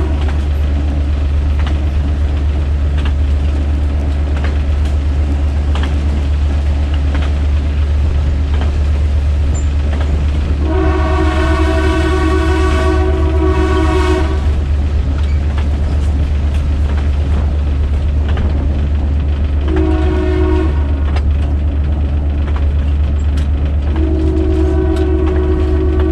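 Diesel locomotive horn of a GMD-1 sounding a long blast, a short one and another long one, the end of a long-long-short-long grade-crossing signal, over the steady low rumble of the moving train.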